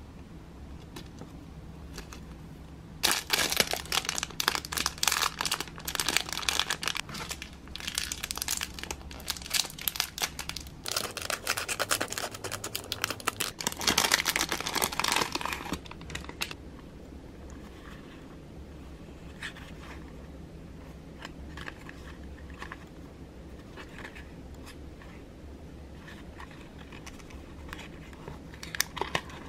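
Clear plastic packaging crinkling and tearing as it is handled and pulled off a small item, in a dense spell lasting about thirteen seconds, then only faint, scattered rustles and ticks.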